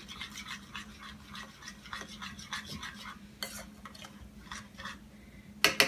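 A spoon stirring a runny mix of taco seasoning, olive oil, vinegar and water in a small ceramic bowl, scraping around the bowl in quick, even strokes, about four or five a second. Near the end come a few louder clinks of the spoon against the bowl.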